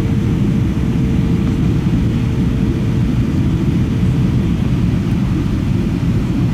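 Cabin noise inside an Airbus A320 airliner in flight: a steady, loud low rumble of engines and airflow. A faint steady tone fades out about three seconds in.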